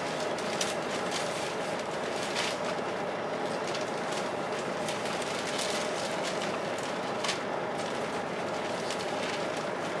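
Volvo B10BLE bus's engine cooling fan 'hoovering', a steady vacuum-cleaner-like rush over the engine idling, heard from inside the passenger saloon with the bus standing still. A few light rattles here and there.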